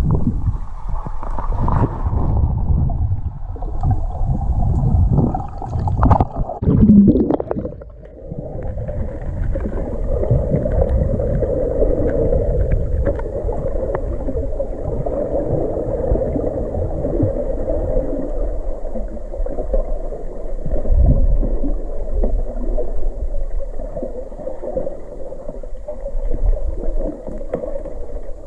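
Muffled underwater sound through a camera: irregular sloshing and water rushing for the first eight seconds or so, with one loud surge in the middle of it, then a steady low drone with rumbling underneath.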